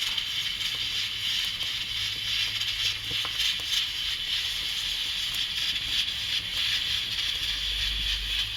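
Pressure cooker hissing steadily at pressure as steam escapes through its valve: an even high hiss, with a few faint ticks.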